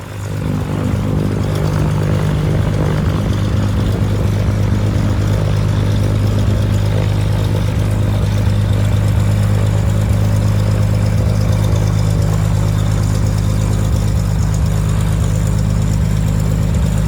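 Cessna 182P's 280 hp Continental IO-520 six-cylinder engine running with its three-blade propeller; the sound comes up over the first second, then holds steady.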